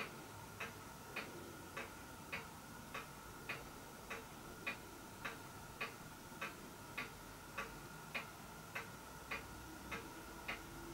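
Faint, even ticking, a little under two ticks a second, over a faint steady high tone.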